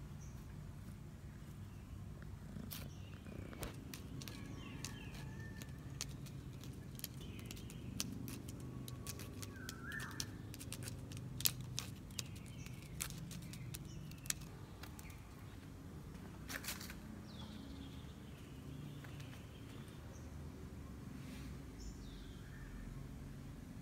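Birds chirping now and then over a low steady background rumble, with a run of sharp clicks and scratches in the middle from a cat's claws raking the bark of a tree branch.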